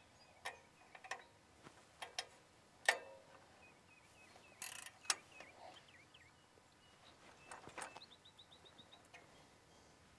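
Faint, scattered metal clicks and knocks from a torsion weeder's bracket clamp being loosened and the weeder re-angled by hand on a two-wheel tractor's toolbar, with one short scrape midway.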